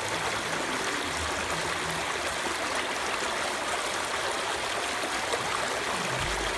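Shallow creek water running and splashing steadily over rocks in small cascades.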